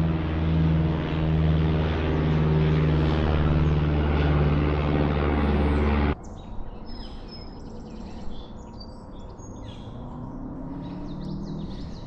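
A loud, steady engine drone with a low hum stops abruptly about six seconds in. After that, birds chirp and whistle over quiet outdoor background.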